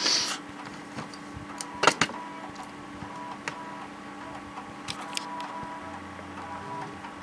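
A 3.5-inch floppy disk drive reading an install disk: a steady motor hum with buzzing head-stepping tones that start, stop and shift pitch. A short burst of noise at the very start and a few sharp clicks, the loudest about two seconds in.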